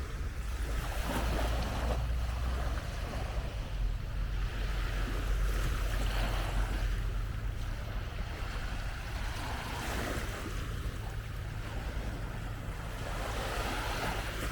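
Small waves washing onto a sandy beach, surging every few seconds, with wind rumbling on the microphone.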